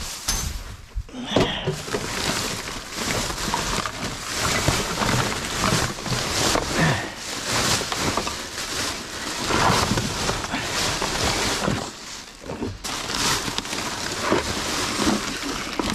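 Plastic rubbish bags rustling and crinkling as they are pulled and shifted around inside a steel dumpster, in irregular swells.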